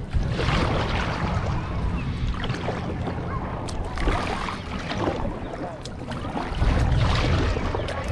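Kayak paddling: water swishing and splashing as the paddle blades dip, swelling every couple of seconds over a steady low rumble.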